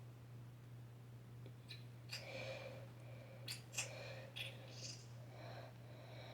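Quiet handling of a glue bottle and plastic measuring cup as glue is squeezed out: a few soft clicks and rustles over a steady low hum.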